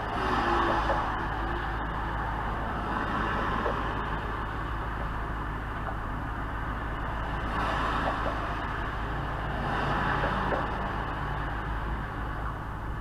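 2008 Mustang GT's 4.6-litre V8 running through an SLP Loudmouth exhaust with a steady deep rumble. It swells louder briefly about a second in and twice more later on.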